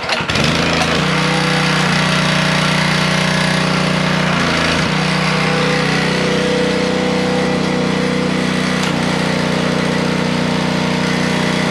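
Simpson gas pressure washer pull-started, its small engine catching at once and then running steadily under load, with the hiss of the wand spraying soap solution; its note shifts briefly about five seconds in.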